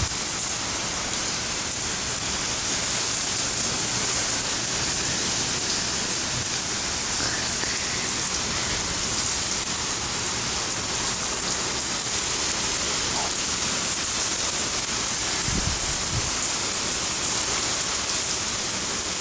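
Heavy thunderstorm rain pouring down steadily, an even hiss of rain on pavement and roofs.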